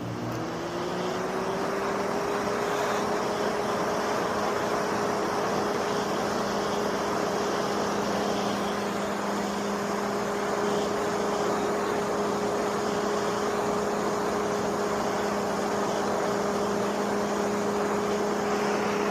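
Coleman Mach rooftop RV air conditioner starting up through a newly fitted soft start: a hum rises in pitch over about two seconds as the motor spins up, then the unit runs steadily with its compressor working, a constant hum under a rush of fan air.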